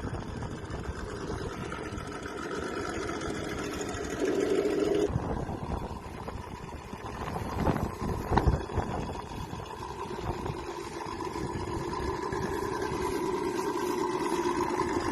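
Remote-control toy car's motor running with a whine that shifts up and down in pitch as the car speeds up and slows, with a few knocks about eight seconds in.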